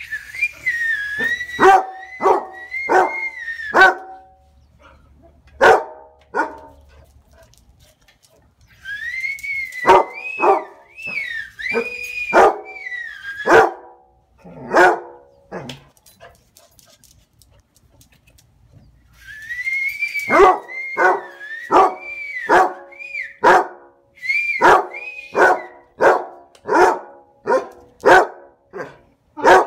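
Basset hound barking in three bouts, each opening with high cries that rise and fall and then breaking into a run of short, quick barks, with quiet pauses between the bouts.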